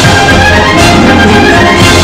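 Loud orchestral background music.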